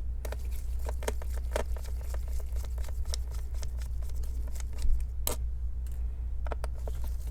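Small Phillips screwdriver backing tiny screws out of a laptop's plastic back cover: irregular light clicks and ticks of metal on screw heads and the case, with a few sharper clicks.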